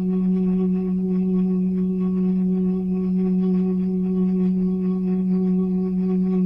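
Tornado siren sound effect holding one steady low tone with a few overtones, neither rising nor falling in pitch or loudness.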